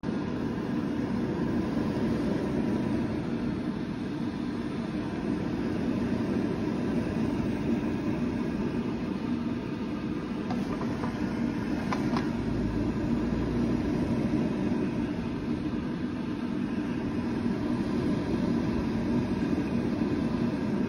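Electric air fryer's fan motor running with a steady whirring hum.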